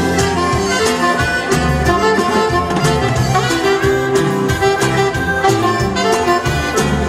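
Live norteño band playing an instrumental cumbia passage: an alto saxophone carries the melody in held notes over acoustic guitar, electric bass and drums, which keep a steady beat.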